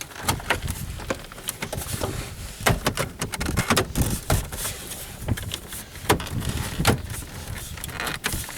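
Plastic dash trim panel being pushed and knocked back into place on a 1998 Pontiac Bonneville dashboard: a run of irregular plastic clicks, knocks and rattles as the clips are worked in.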